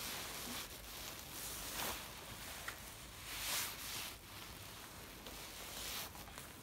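Faint handling sounds as an adjustable wrench tightens a steel elbow into a hydraulic cylinder: soft rustling swells from work gloves and a padded jacket sleeve, with a light metallic click or two from the wrench on the fitting.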